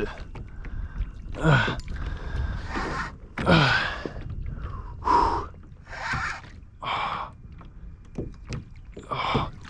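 A man breathing hard with sharp gasps and grunts while fighting a bull redfish on the rod: about seven heavy breaths, roughly a second apart, a couple of them voiced and falling in pitch.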